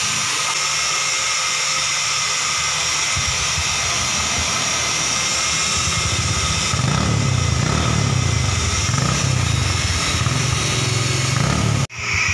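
Honda Supra X 125 motorcycle's single-cylinder four-stroke engine running through its rusted-through muffler, newly rebuilt in stainless steel. It runs steadily at first, then from about seven seconds in gets louder, with the engine speed rising and falling as it is revved. The sound cuts out for an instant near the end.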